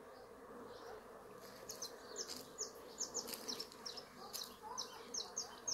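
A swarm of bees buzzing as a faint, steady hum.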